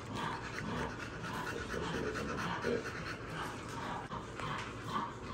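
American bully dog panting in quick, even breaths.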